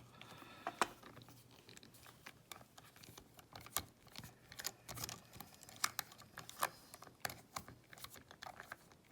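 Small metal clicks and light taps, irregular, as a padlock's lock core and its loose parts are handled and taken out of the lock body.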